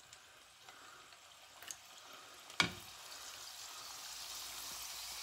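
Strips of namak para dough deep-frying in hot oil: a sizzle that starts faint and builds, growing steadily louder through the second half as more strips go in. A single sharp tap about halfway through.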